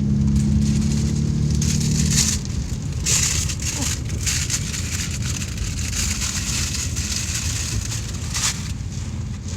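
Heavy rain and wind hitting a car, heard from inside the cabin over the car's low rumble, with the hiss of the rain surging in gusts about 2, 3 and 8 seconds in.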